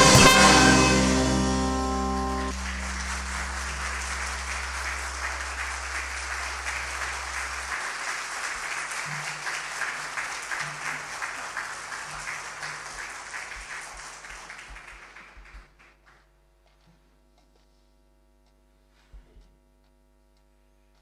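A band's closing chord rings and stops about two seconds in, then the audience applauds, the clapping thinning out and dying away about fifteen seconds in. After that only a faint steady amplifier hum and a soft thump or two remain.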